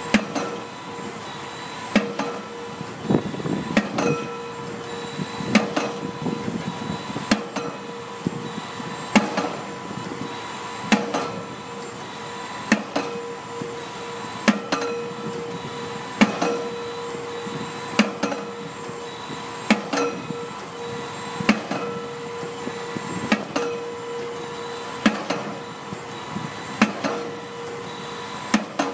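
Pile-driving hammer striking a pile at a steady pace, about one blow every second and three-quarters. Each blow is a sharp impact with a short metallic ring, over a steady machine hum.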